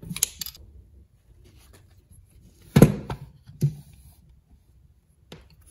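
A few knocks and clicks of a Rochester Quadrajet carburetor body and its small metal parts being handled on a workbench. The loudest is a single thud a little under three seconds in.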